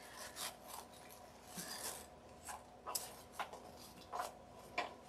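Faint rustling and scuffing of paper coffee filters handled and pressed into place by hand, about eight short scuffs at uneven intervals.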